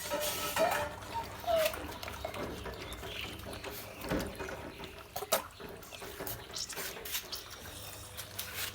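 One-month-old American Akita puppies lapping goat milk from a dish, with a wet, clicky smacking. There are three short rising squeaks in the first two seconds.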